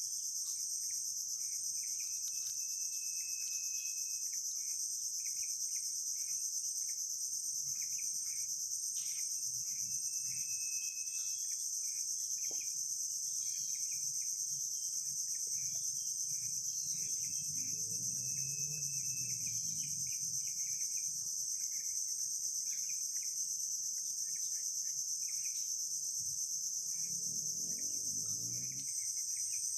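Dense insect chorus, a steady high-pitched drone without a break.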